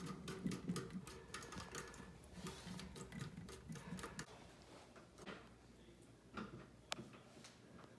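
Faint, irregular light clicks and taps of handling, with a few sharper ticks in the second half.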